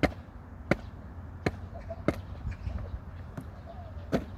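Five sharp taps, about one every three-quarters of a second with a gap of two seconds before the last, over a steady low rumble.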